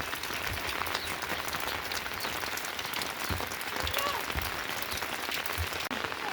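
Steady rain falling: a dense, even hiss of many drop impacts.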